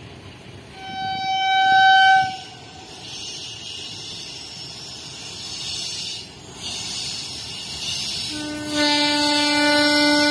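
Indian Railways WAG-9 electric freight locomotive sounding its horn as it approaches: a long steady low blast starting near the end. About a second in, a higher-pitched horn sounds for about a second, the loudest moment, with a hiss in between.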